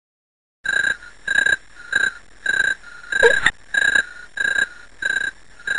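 Rhythmic chirping sound effect of night creatures, starting after a brief silence and repeating evenly about one and a half times a second. The chirps are short, high and loud, with a brief rising squeak in the middle.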